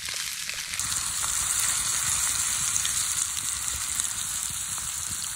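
Whole rainbow trout, onions and butter sizzling in a small frying pan over a campfire: a steady frying hiss that grows louder about a second in, with faint scattered pops.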